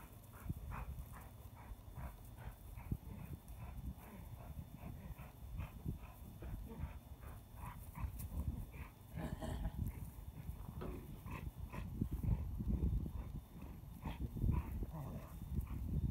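A dog panting in quick, even breaths, over dry grass rustling and scuffing as a person drags along the ground tugging a rope with a puppy; the rustling grows louder in the second half.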